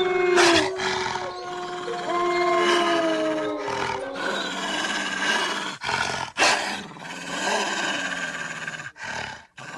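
Wolf vocalizations: a howl sliding down in pitch, a second shorter falling howl about two to three and a half seconds in, then rougher growling, with sharp loud bursts near the start and about six and a half seconds in.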